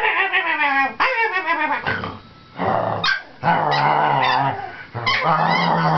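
Cavalier King Charles Spaniel puppy vocalizing: quick high calls that fall in pitch over the first two seconds, then two longer, low-pitched calls.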